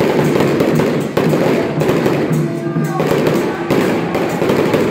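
Strings of firecrackers crackling in a dense, continuous rattle, with procession music playing underneath.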